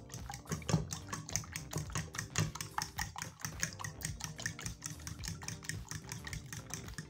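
A metal fork whisking raw eggs in a ceramic bowl, clicking against the bowl in a fast, even rhythm.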